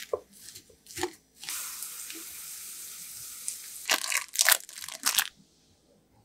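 Kitchen food-preparation sounds: a few clicks of a spoon mixing a vegetable and mashed-potato mixture in a glass bowl, then a steady hiss for about two and a half seconds, then a run of loud crunchy crackles that stops near the end.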